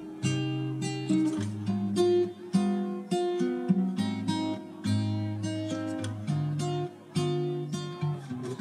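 Background music: an acoustic guitar playing a run of plucked and strummed notes.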